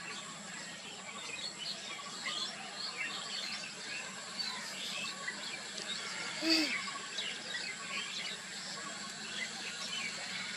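Outdoor ambience of many birds chirping and calling, over a steady high-pitched whine. A single short call that rises and falls stands out, louder than the rest, a little past halfway.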